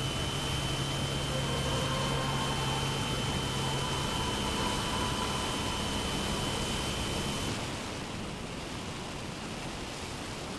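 Air rushing over an onboard camera on an electric-powered RC glider in flight, with a steady high whine from the electric motor. The whine stops about seven seconds in, and the rush of air grows a little quieter.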